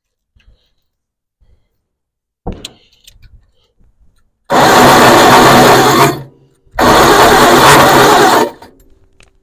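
Starter on a 1964 Farmall Cub cranking the engine in two bursts of about a second and a half each, after a short click. The engine turns over but does not fire, which the owner puts down to a bad coil-to-distributor wire.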